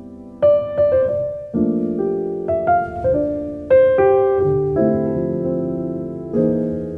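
Background piano music: notes and chords struck one after another, each ringing out and fading.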